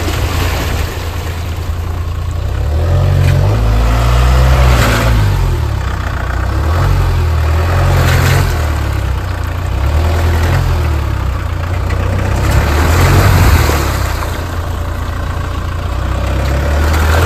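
Mahindra Thar's engine revving and easing off as it pushes through a muddy puddle, its tyres churning and splashing the water. The engine note swells several times, loudest about four, eight and thirteen seconds in.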